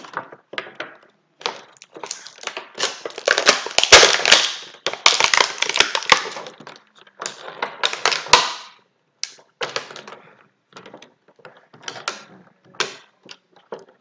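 Action-figure packaging crackling and rustling as it is worked open by hand, with a few sharp snaps. It is densest and loudest about three to six seconds in and again around eight seconds, then thins out to scattered crinkles.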